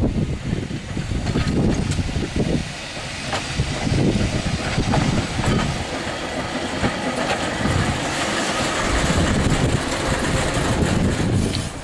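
Manx Electric Railway ratchet car 16, an open crossbench electric tram on 3 ft gauge track, passing close by with a flat wagon in tow. Its wheels rumble steadily on the rails, with scattered clicks from the running gear and rail joints.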